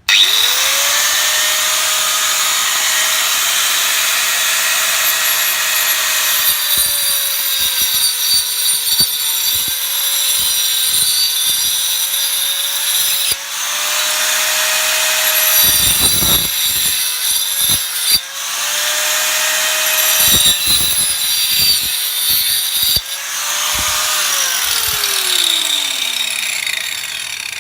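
Handheld angle grinder fitted with a wood saw blade, spinning up with a steady high whine, then sawing through a log in several passes with a loud rasping cut. Near the end it is switched off and winds down with a falling whine.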